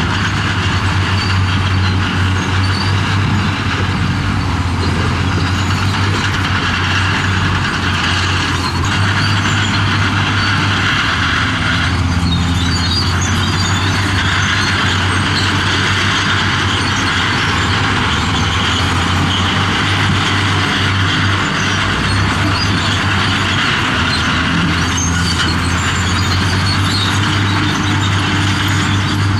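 Heavy diesel engine of earthmoving machinery running steadily under load, a constant low drone with a rough, clattering noise over it.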